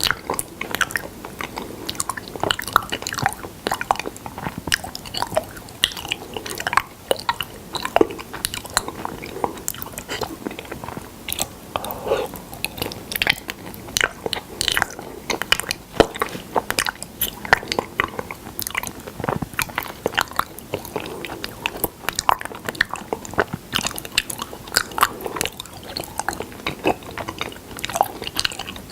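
Close-miked mouth chewing honey: a dense, uneven run of many quick clicks and smacks.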